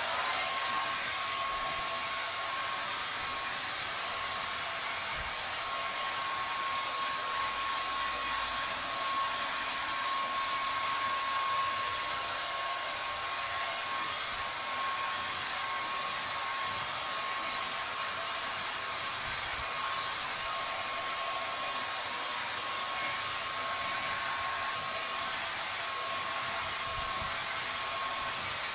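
Handheld hair dryer blowing steadily on long wet hair, a constant rush of air with a thin, steady whine from its motor.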